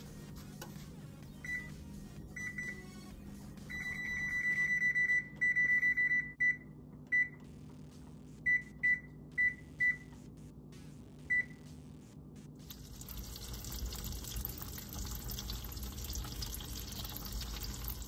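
Electric range's control panel beeping as its keys are pressed to set the cooking timer: single short high beeps, and about four seconds in a run of rapid beeps lasting a couple of seconds. The beeps stop past the middle, leaving a steady low hum.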